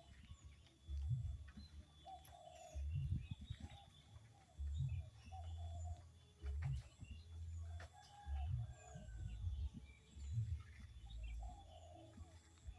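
Birds calling in short, repeated notes with faint higher chirps, over low rumbling surges on the microphone that come every second or two and are the loudest sound.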